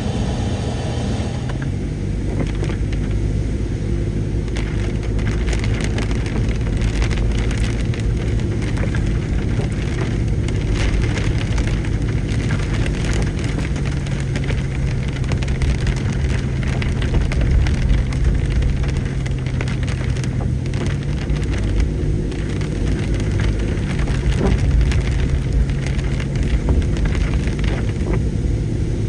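A car driving on a wet, muddy road: steady engine hum under tyre and road noise, with scattered ticks and spatters.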